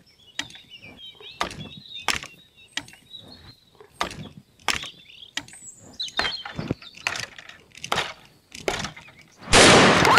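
A long gun fires a single loud shot near the end, which rings on for about a second. Before it come steady knocks about every two-thirds of a second, with birds chirping.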